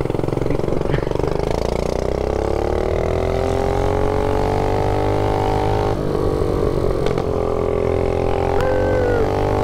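A mini bike's single-cylinder engine, its governor removed, revving up as the bike pulls away. Its pitch climbs over a few seconds and then holds at high revs, with a brief dip about six seconds in. Wind rumbles on the chin-mounted microphone.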